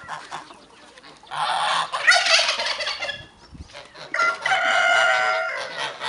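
A rooster crowing twice, each crow lasting about a second and a half, with a short pause between them.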